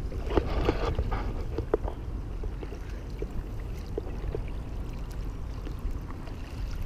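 Double-bladed paddle dipping and splashing in the water beside an inflatable canoe, with water dripping and a few light knocks. A steady low rumble runs underneath.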